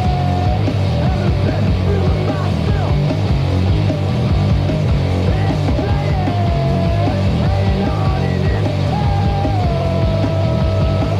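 Punk rock from a demo cassette: a rock band playing loud and steady, with a wavering, held high line over a dense low end.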